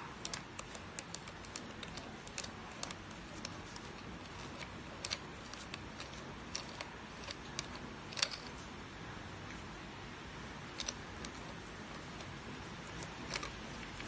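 Small irregular clicks and taps as the burr assembly of a stainless steel hand coffee grinder is fitted and turned by hand. The clicks come thickest in the first few seconds, with a few sharper single clicks later, over a steady faint hiss.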